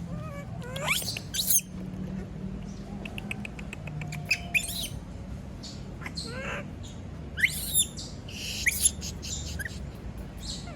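Young pet monkey screaming in distress at being left alone, away from its companion: a string of short, shrill shrieks that sweep up in pitch, with a quick run of clicks about three seconds in, over a steady low hum.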